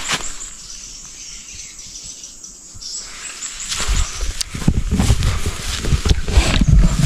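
Rustling and crunching through forest undergrowth, louder and more irregular from about halfway in, with faint high chirping in the background.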